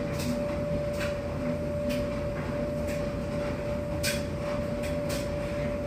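A steady mechanical hum holding one clear tone over a low rumble, with a few faint clicks scattered through it.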